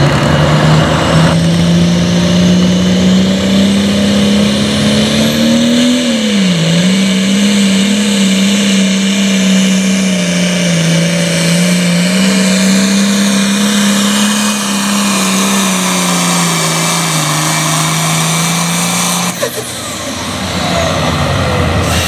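Diesel engine of a John Deere super farm pulling tractor running flat out through a full pull with the sled. Its pitch climbs over the first six seconds, dips briefly, then holds steady until it drops away suddenly about nineteen seconds in as the pull ends.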